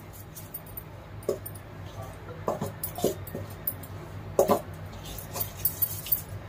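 Hands rubbing and mixing a crumbly flour mix in a stainless steel bowl: soft scraping with scattered light clinks and ticks against the steel.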